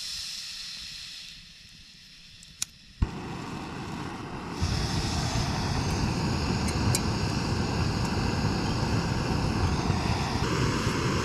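Portable gas camping stove being lit: a brief hiss of gas, two igniter clicks, then the burner catches and runs with a steady rushing noise that gets louder a second or two later, as the flame is turned up to boil water.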